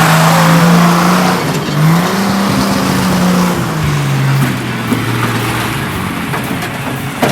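1968 Ford Bronco engine running as the truck is driven. The engine note holds steady for about a second and a half, wavers, and drops to a lower, steadier pitch from about four seconds in as the engine eases off.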